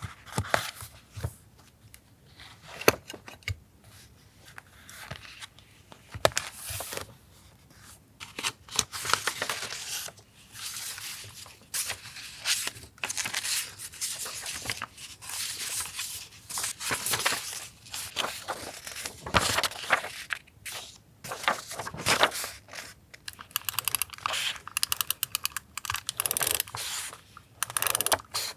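Paper tearing and crinkling as it is handled for a collage journal page: irregular rustles and rips, with a quick run of small ticks near the end.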